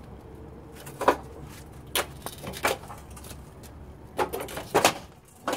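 Knocks and clunks of a Honda ATC three-wheeler being tipped up and shoved into a van's sliding-door opening. The sharpest knock comes about a second in, a few more follow, and a quick run of bumps comes near the end.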